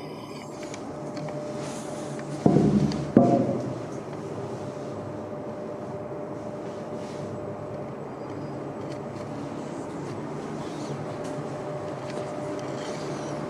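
Steady low hum of machinery in an accelerator tunnel, with a faint held tone. About two and a half seconds in come two loud, low thumps in quick succession.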